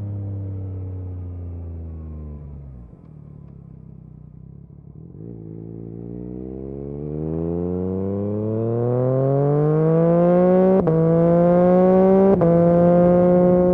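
Yamaha MT-09 SP's three-cylinder engine through an Akrapovic exhaust. It slows and drops in pitch, runs quietly off the throttle for a couple of seconds, then pulls hard with a steadily rising note, broken twice by quick upshifts near the end.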